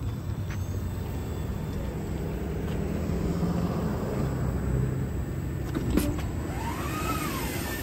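Transit bus engine running at the curb with a steady low rumble. About six seconds in there is a click, followed by a whine that rises and then falls in pitch, typical of the bus's front door mechanism starting to open.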